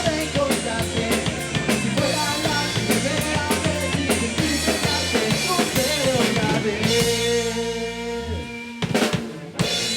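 Rock music played by a band with a full drum kit and bass guitar. Near the end the bass stops and the song closes on a couple of last drum hits.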